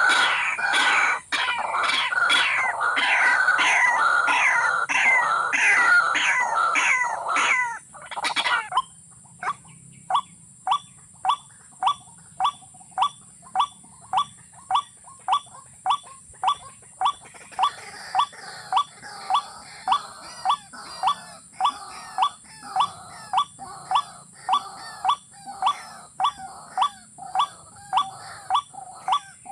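Rail calls: a dense, overlapping run of loud calls for about eight seconds, then one short call repeated steadily about twice a second.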